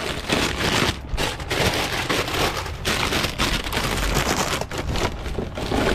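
Plastic snack bags of popcorn and chips crinkling and rustling as they are grabbed and moved by the handful: a dense crackle with irregular sharp snaps.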